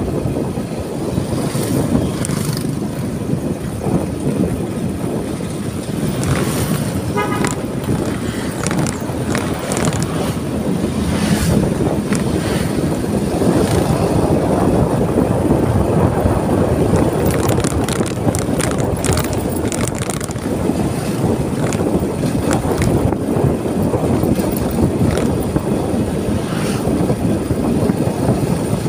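Steady rumble of a ride along a road, the wind and vehicle noise heavy on the microphone, with a few short sharp clicks and rattles scattered through.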